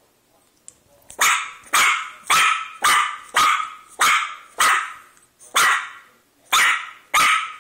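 Boston Terrier puppy barking: a run of about ten sharp barks, roughly two a second, starting about a second in.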